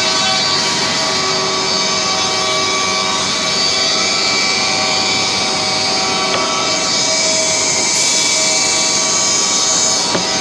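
Weinig woodworking machine running steadily and loudly, its cutters giving a dense whir with several steady whining tones over it.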